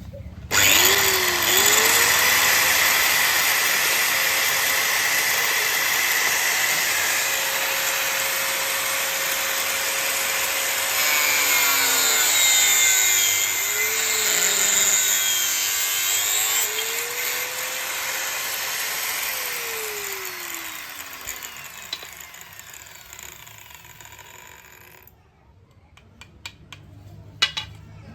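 Electric power tool motor starts with a sharp jump, runs at high speed with a steady whine, and sags in speed several times under load. It then winds down to a stop, followed by a few sharp clicks near the end.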